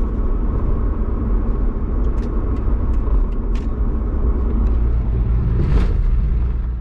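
Cabin noise inside a 2003 Ford Mustang cruising at about 40 mph in fifth gear: a steady, loud low rumble of road and engine noise, measured at about 75 decibels. A few faint clicks are heard, and there is a brief louder swell about six seconds in.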